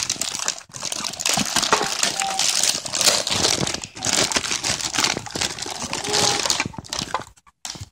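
Plastic packaging bags crinkling and rustling continuously as they are handled and pulled out of a cardboard box, with scissors cutting at a plastic bag near the end.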